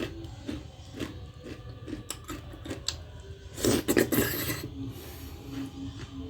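Close-miked eating: small clicks and scrapes as food is handled and chewed, with a louder rasping burst lasting about a second near the middle.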